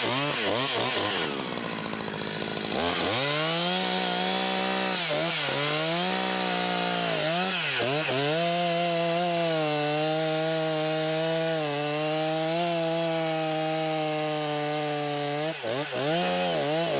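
Chainsaw cutting into a tree trunk. For about the first three seconds it is quieter and uneven, then it runs at high revs, its pitch dipping several times as the chain loads up in the wood.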